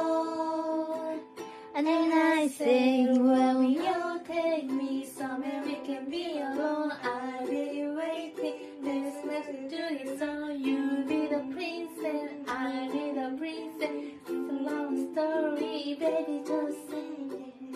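Ukulele strummed steadily while a woman sings a melody over it.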